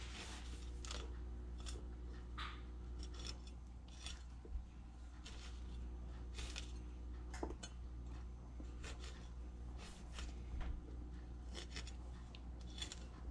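A cleaver blade slicing and scraping the leftover eyes and skin off a peeled pineapple: a quiet series of short, irregular cuts.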